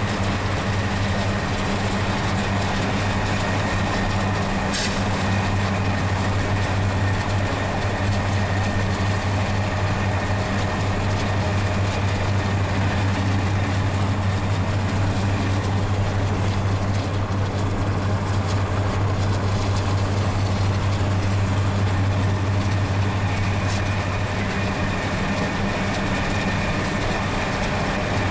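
Union Pacific EMD diesel locomotives working as mid-train DPUs in a freight train, a steady low drone under the rolling noise of the train.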